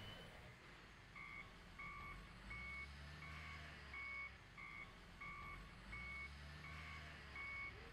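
Backup alarm of a wheel loader beeping at an even rate, about one and a half beeps a second, over the low rumble of its engine, which swells twice.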